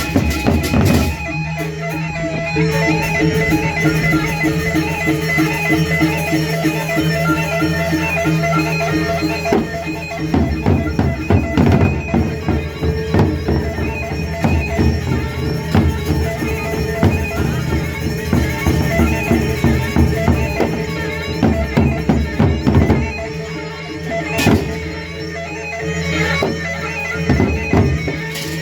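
Traditional instrumental ensemble music: a reedy wind instrument holds steady sustained notes over drums. The drumming grows denser and faster from about a third of the way in, then eases off shortly before the end.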